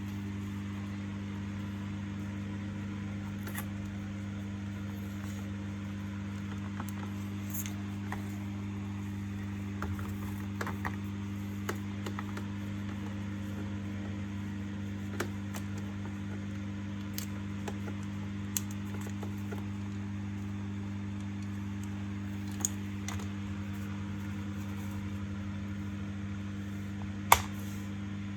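Steady low hum with scattered light clicks and taps, and one sharp click near the end.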